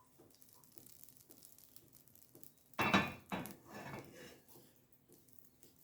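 A kitchen utensil knocking and scraping against a frying pan, spreading melted margarine: one loud clatter with a short metallic ring about three seconds in, then a few lighter scrapes.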